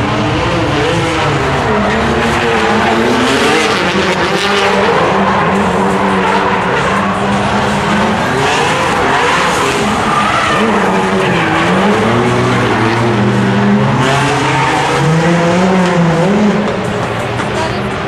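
Drift cars sliding through a corner in tandem, their engines revving up and down hard under tyres that skid and squeal.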